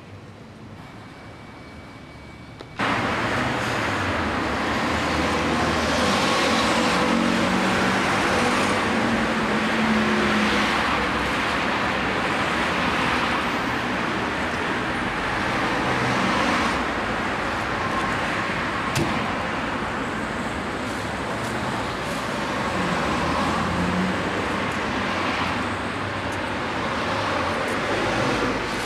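City street traffic noise: cars running and passing in a steady rush of road noise that swells and fades every few seconds. It cuts in suddenly about three seconds in, after a quieter start.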